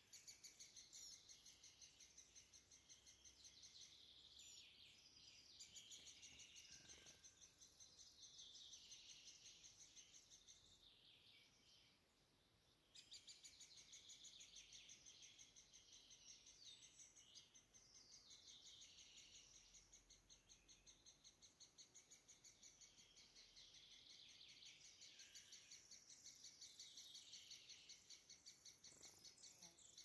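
Faint, rapid high-pitched cheeping of European pied flycatcher nestlings begging inside the tree-hole nest. The fast string of calls fades out near the middle and comes back abruptly about two seconds later.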